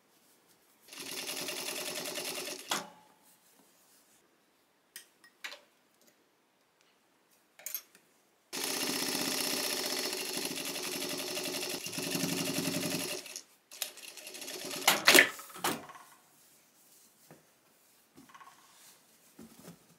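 Electric sewing machine stitching in two runs, a short one of about two seconds and then a longer one of about five seconds. Scattered clicks fall between the runs, and a quick cluster of sharp clicks comes after the second run.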